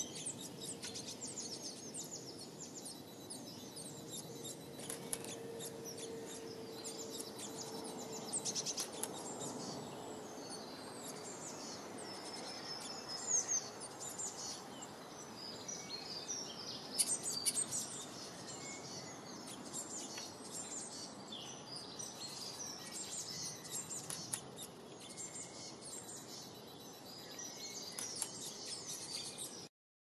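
Small garden birds chirping and twittering in many quick, high calls over a steady outdoor background hiss. A faint steady hum comes and goes between about four and ten seconds in.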